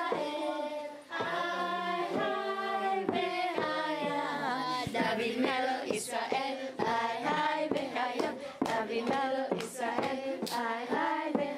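A group of children singing together in chorus, unaccompanied, with a few sharp claps among the singing.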